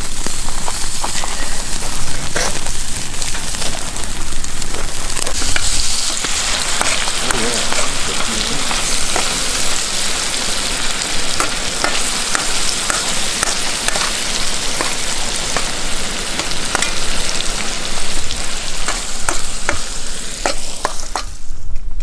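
Food sizzling over a campfire: steaks on a wire grill grate, then asparagus frying in a pan, a steady hiss with scattered crackles and pops. The sizzle cuts off suddenly near the end.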